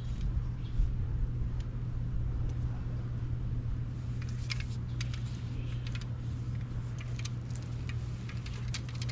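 A steady low mechanical hum, like an engine or machine running, with a few faint clicks over it.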